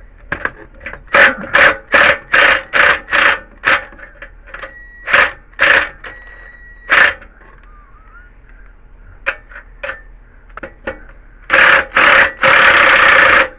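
Ratchet wrench clicking in a run of short strokes, about two a second, as the engine mounting bolts are loosened, then a longer, louder stretch of ratcheting near the end.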